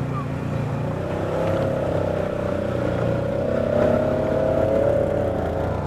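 Side-by-side UTV engines running on a trail as a second machine passes close alongside. Under a steady low engine hum, a higher engine tone swells from about a second in and eases off near the end.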